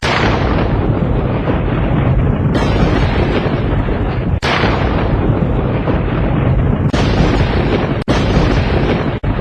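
Storm sound effect of heavy rain with a low rumble of thunder, loud and dense. It is spliced into pieces that restart abruptly every one to three seconds, each with a sharp, bright start.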